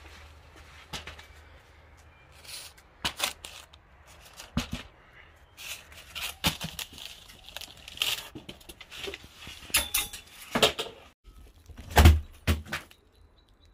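A homemade chain-reaction machine running: a tennis ball rolls and drops along a wooden rail and a paper chute, setting off a string of irregular knocks, clatters and taps. The loudest is a heavy thump about twelve seconds in.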